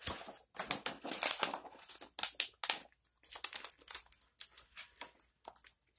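Paper rustling and crinkling in a run of short, irregular bursts as a page of a picture book is turned and handled.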